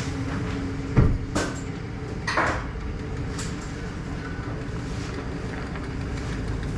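A vehicle engine running steadily at idle, with a sharp thump about a second in, the loudest moment, followed by a click and a brief rattle.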